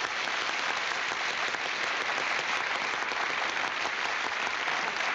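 Studio audience applauding steadily after an act is introduced on stage.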